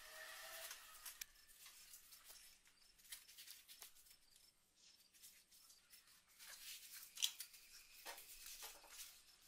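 Faint, scattered clicks and crackles from a glowing Damascus billet of forge-welded leaf spring and 4340 steel being twisted in a vise with a pipe wrench, a little busier near the end.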